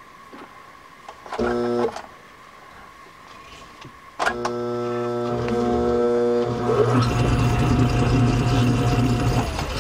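Small metal lathe's electric motor humming in a short burst about a second in, then switched on again about four seconds in and left running with the chuck spinning. A rattling mechanical noise from the spindle drive builds up over the steady hum as it runs.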